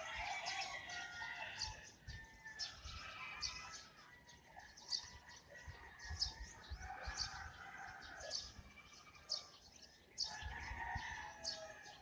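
Morning bird chorus: many birds chirping and singing in quick short notes, with longer, lower calls near the start, in the middle and near the end.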